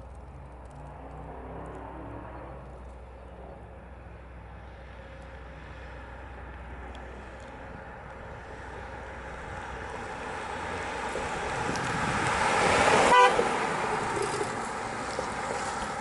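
2008 BMW 3 Series driving past: its engine and tyre noise grows as the car approaches, is loudest as it passes close, about three-quarters of the way through, then fades as it drives away.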